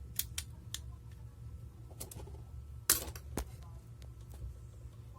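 Scattered sharp clicks and snaps of small parts of an airsoft gas-blowback pistol being handled, the loudest a little under three seconds in, over a steady low hum.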